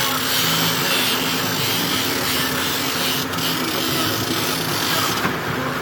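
Steady rasping hiss, which stops about five seconds in, over the low hum of a boat's engine.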